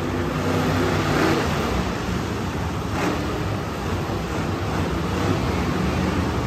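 Monster truck engine running steadily.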